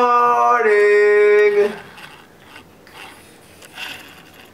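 A young girl's high voice calling out a long, drawn-out "good morning", held for about two seconds and ending less than two seconds in.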